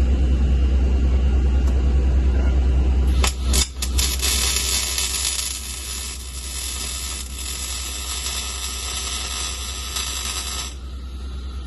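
Welding arc on steel crackling and hissing steadily for about seven seconds while tack welds are laid, starting with a few sharp clicks as the arc strikes about three seconds in. A low hum comes before it.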